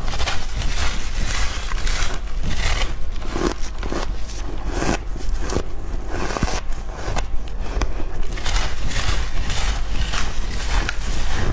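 Close-miked biting and chewing of refrozen shaved ice: an irregular run of sharp crunches, many in quick succession, as a compacted icy block is bitten into and crushed between the teeth.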